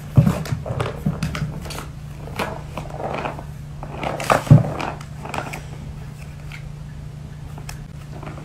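Cat batting at a Catit plastic ball-track toy: a string of light knocks and rattles of paw and ball against the plastic circuit, most of them in the first five seconds, over a steady low hum.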